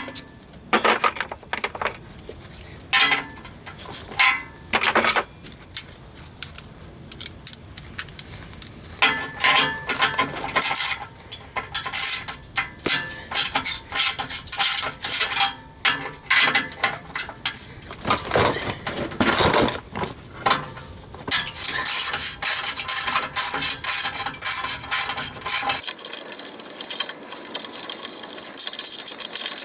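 Socket ratchet clicking in short runs and metal tools clinking against exhaust clamp hardware, as exhaust clamps are loosened and removed. A long stretch of fast ratchet clicking comes near the end.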